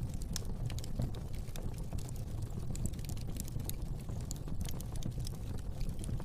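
Wood fire burning in a fireplace: irregular crackles and small pops over a low, steady rumble of flame.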